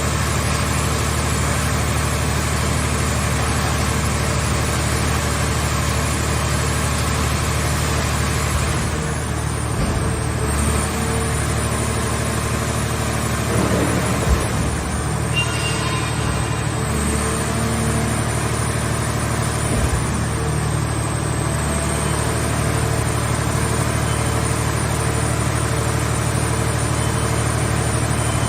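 Scrap car baler's engine-driven power unit running steadily with a low hum, with a few short clunks about halfway through.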